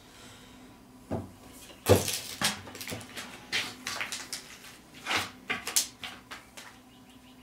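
Large timber-framing chisel pushed by hand through a slot in a rough-sawn board, paring and scraping out wood in a series of irregular strokes, with one sharper knock about two seconds in.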